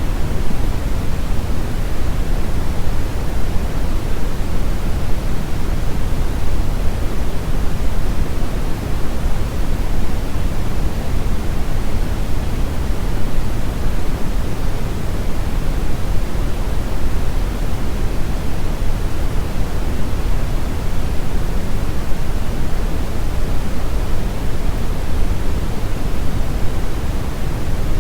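Continuous synthetic noise, steady and unchanging, with more weight in the low end than a plain hiss.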